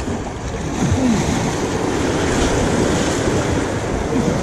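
Choppy sea water splashing and churning, with wind buffeting the microphone; it gets louder about a second in.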